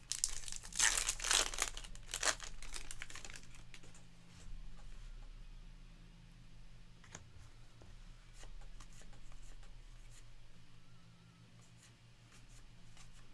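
A trading-card pack wrapper being torn open and crinkled, loudest in the first three seconds, followed by fainter rustling and light clicks as the cards are handled. A steady low electrical hum runs underneath.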